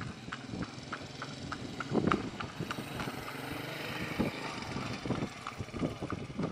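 Scattered sharp cracks and pops, a few a second and irregular, with a few duller thuds, over a steady outdoor hiss.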